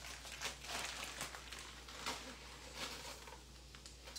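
Irregular rustling with light clicks as a bag of frozen diced bell peppers is handled and the frozen pieces are worked apart.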